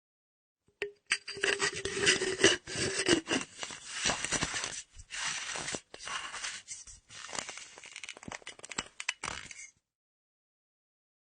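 Empty metal flask's screw cap being unscrewed and screwed back, a dense run of metal scraping and clicking lasting about nine seconds. A low ringing note sounds under the first two and a half seconds.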